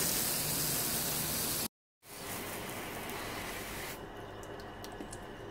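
Garden hose spray nozzle hissing as water is sprayed over freshly charred decking boards to quench and harden them. The hiss cuts out for a moment about two seconds in, returns, and stops at about four seconds, leaving a few faint clicks.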